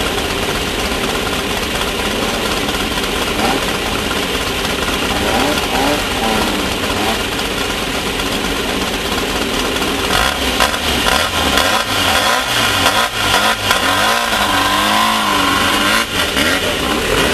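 Class 1600 off-road race car's engine running hard, the revs rising and falling. Repeated sharp knocks and rattles come in the second half.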